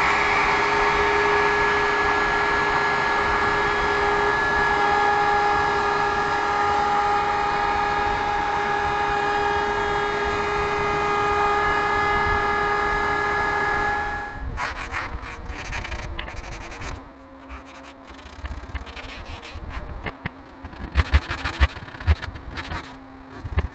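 Palm router running with a steady whine as it cuts a juice groove into an end-grain cutting board, stopping abruptly about fourteen seconds in. After that come irregular scratchy strokes of sandpaper rubbed by hand over the board.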